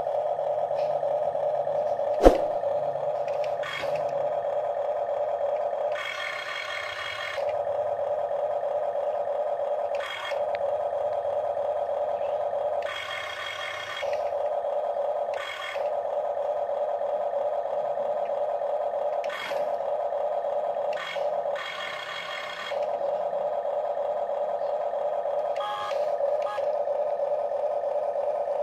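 Huina RC excavator toy: a steady, slightly wavering electronic engine hum with several short bursts of whirring as its gear motors work the boom and bucket. One sharp click about two seconds in.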